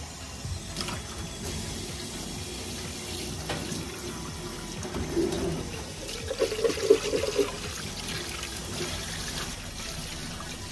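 Milky miso mushroom soup in a cooking pot: liquid simmering and sloshing as it is stirred, with a few light knocks and a louder stretch of bubbling or sloshing a little past the middle.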